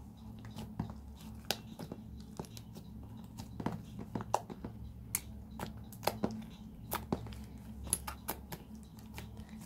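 Watered-down, sticky slime being kneaded and squeezed by hand on a tabletop, giving irregular wet squelches and small sticky pops and clicks, over a steady low hum.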